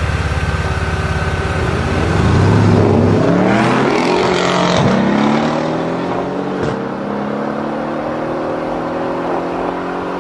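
BMW Alpina B7 Biturbo's twin-turbo V8 and a Mercedes E63 AMG launching together from a standing start. The engines run low at first, then rev up about two seconds in. They rise in pitch with two breaks at the upshifts and fade slightly as the cars pull away.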